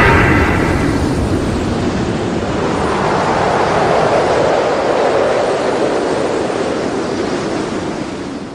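Tail of a kaiju roar sound effect: a loud, rushing, hiss-like noise without a clear pitch that swells a little midway and then fades out.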